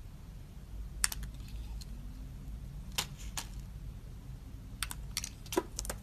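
A snap-off utility knife blade scraping the edge of a translucent glycerin soap bar, making short, sharp clicking scrapes in small clusters: a pair about a second in, two around three seconds, and a quick run of several near the end.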